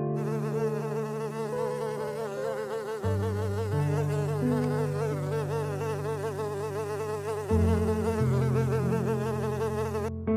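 Honeybee buzzing: a steady hum that wavers rapidly up and down in pitch, over steady low held tones that shift about three and seven seconds in.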